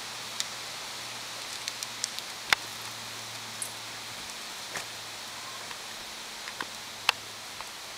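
Scattered clicks, scuffs and knocks of a person and a dog scrambling up loose rocks and branches, the sharpest knock about two and a half seconds in and another near the end, over a faint steady hiss.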